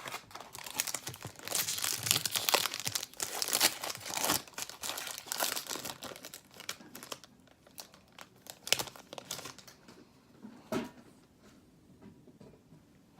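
Wrapper of a 2018-19 Upper Deck Series 2 hockey card pack being torn open and crinkled, dense crackling for about the first seven seconds. A few light clicks and taps follow, one sharper near the end.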